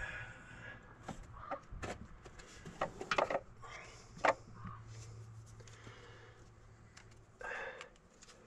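Scattered clicks and knocks of hands working the distributor cap of an old Ford V8, getting at the points to chase a no-spark condition. The loudest knocks fall about three seconds in and again just after four seconds.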